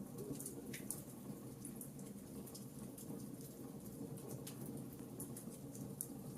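Fireplace fire crackling: scattered small pops and snaps over a steady low rumble of flames, with a sharper pop about a second in.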